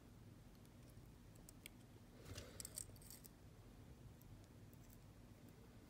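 Near silence with a few faint, small metallic clicks and ticks, mostly about two to three seconds in: a jump ring being fitted through a lobster clasp with jewelry pliers.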